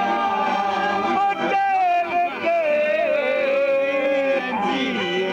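People singing a folk song together, with one voice holding two long notes, the second lower than the first, over talk and other voices.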